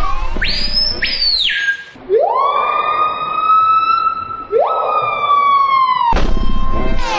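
A bird screaming: a short high shriek that rises, holds and drops, then two long siren-like calls, each sweeping steeply up and then holding, the second starting before the first ends. Music plays briefly at the start and again near the end.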